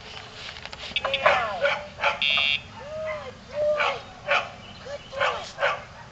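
Dog barking repeatedly, some barks rising and falling into yelps. About two seconds in, a short steady electronic buzz from a Dogtra remote training collar cues the dog to lie down.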